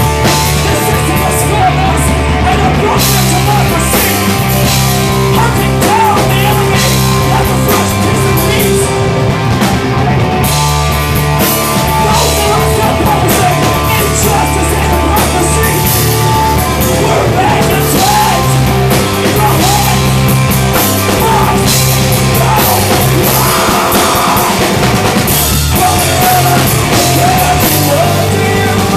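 A live metal band playing loudly: distorted electric guitar, bass guitar and a drum kit in a dense, steady mix.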